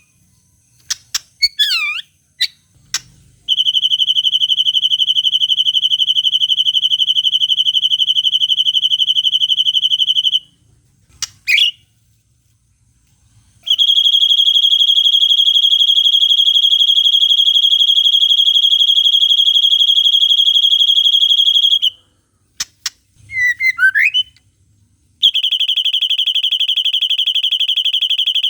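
White-rumped shama song: long, harsh, steady-pitched buzzing trills in the style of the cililin, three of them lasting several seconds each. In the gaps between them come short, quick falling whistles.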